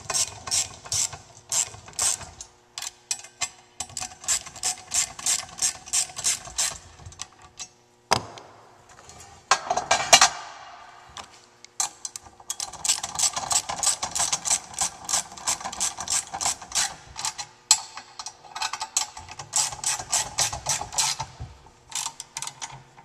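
Socket ratchet wrench clicking in long runs, about five clicks a second, as the top screws of a steel overhead-conveyor track splice joint are run down to clamp two track sections into the joint. A couple of louder knocks about eight and ten seconds in briefly break the clicking.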